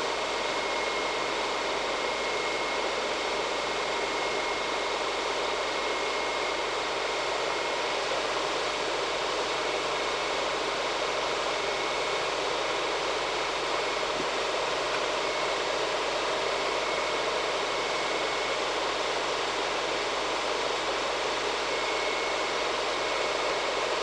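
Homemade 300-watt hot-air soldering gun blowing a steady rush of hot air onto a circuit board to melt the solder and free the parts, with a faint high tone that comes and goes.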